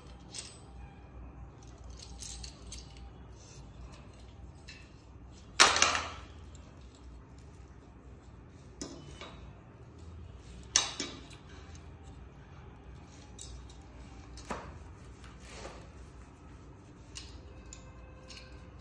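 Metal parts of a spring-loaded swivel arm stand clicking and knocking together as it is handled and its screw table clamp is fitted on. There are several sharp metallic clinks, the loudest about five and a half seconds in, with a short ring after it.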